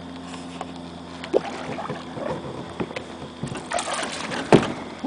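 Water splashing and knocks against a fishing boat as a hooked smallmouth bass is brought to the boat and landed, with a sharp knock near the end. A low steady hum fades out about two seconds in.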